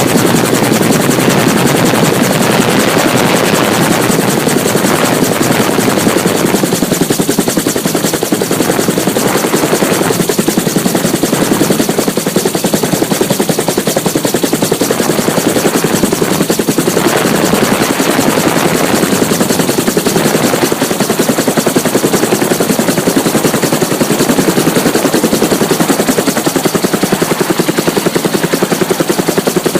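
Helicopter running loud and steady, its rotor blades beating in a fast, even chop.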